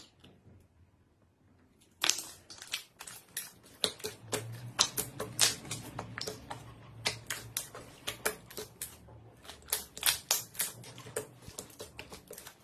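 Hands squishing and kneading a large glob of clear, glossy slime, giving a quick, irregular run of sharp sticky clicks and pops that starts about two seconds in.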